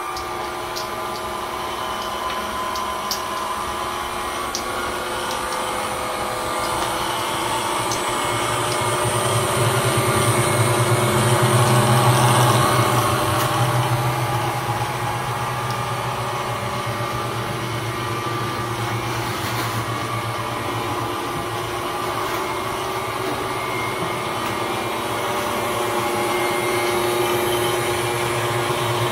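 Steady hum of a small motor with a constant pitch, swelling louder for a few seconds about ten seconds in.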